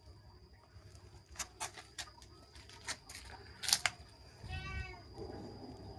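Several sharp taps and clicks, the loudest near the middle, then a kitten gives one short meow near the end.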